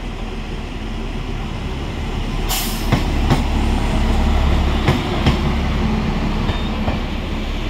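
Railway OHE inspection car running past close by: a low diesel engine rumble that swells as it passes and then fades, with a few sharp clicks of its wheels over rail joints.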